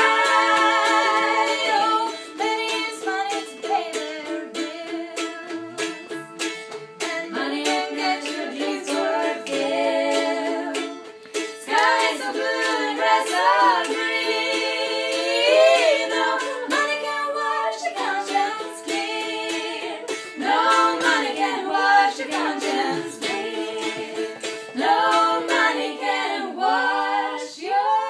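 Three women singing together in harmony, accompanied by an acoustic mandolin played in a steady rhythm.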